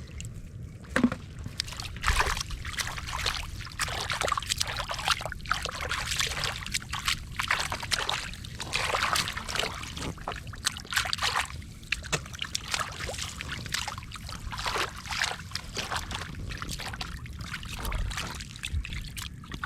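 Muddy water splashing and sloshing in quick, irregular splashes as hands grope through a flooded hole in the mud.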